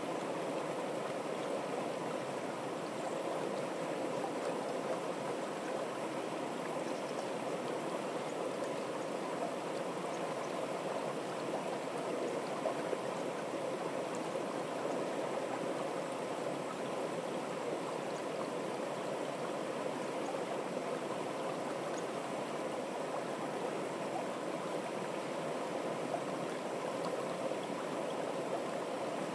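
Shallow stream running fast and steady down a wooden-walled channel over small steps, a continuous rushing wash of water.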